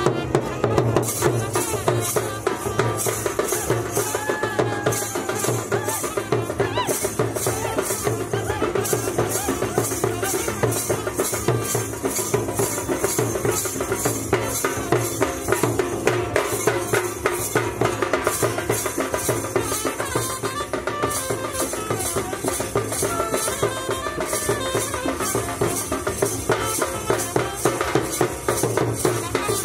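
Nepali panche baja wedding band playing a fast dance tune: drums and small cymbals keep a quick, steady beat, with a wavering melody above it.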